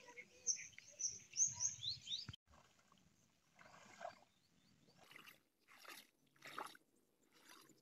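Birds chirping with short, quick up-and-down calls. About two and a half seconds in, the sound cuts abruptly to a series of faint water splashes and sloshes, roughly one a second, from a man wading in a pond with a fishing net.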